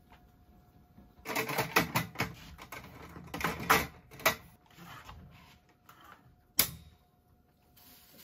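Folding camping table with a slatted roll-up tabletop being set up: the slats clatter and the frame clicks in a quick run starting about a second in, followed by a few scattered clicks and one sharp snap near the end.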